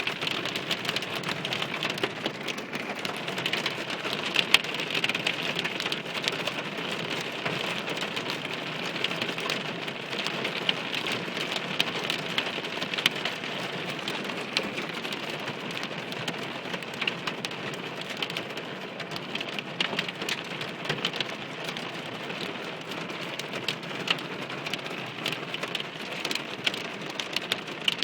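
Heavy rain and hail striking hard surfaces: a steady hiss of rain dense with many sharp ticks of hailstones, easing a little partway through.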